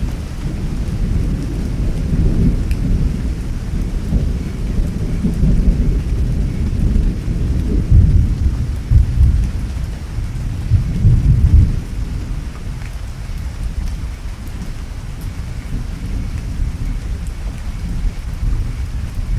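Thunderstorm: a long, low rumble of thunder that builds, peaks about 8 to 12 seconds in, then fades, over steady heavy rain.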